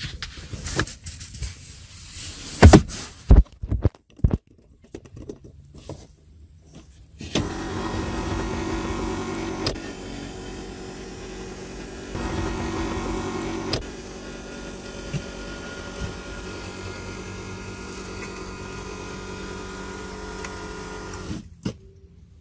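An electric motor in the Haima S5's cabin whirring steadily for about fourteen seconds, louder for two short stretches, then stopping sharply, in the manner of a power window or sunroof motor. A few loud knocks and clicks come before it starts.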